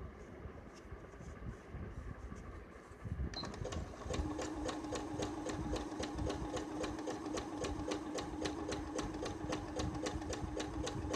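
Electric sewing machine sewing a zig-zag stitch along a saree's edge. It starts about three seconds in, then runs evenly: a steady motor hum under rapid needle ticking at about five stitches a second.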